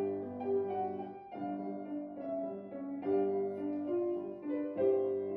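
Background piano music: a slow, gentle melody of single notes over soft chords, changing chord about every second and a half.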